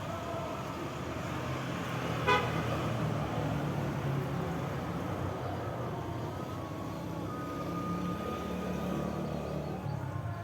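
Steady low engine-like hum of passing road traffic, with one short horn toot about two seconds in.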